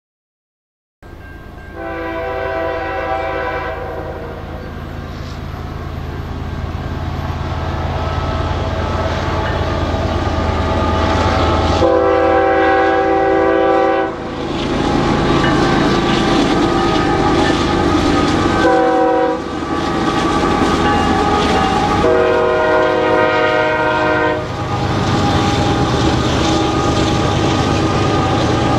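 Canadian Pacific freight train's diesel locomotives approaching with a steady low engine rumble, starting about a second in. The lead locomotive's horn sounds the grade-crossing signal: long, long, short, long. Freight cars roll over the crossing with wheel clatter near the end.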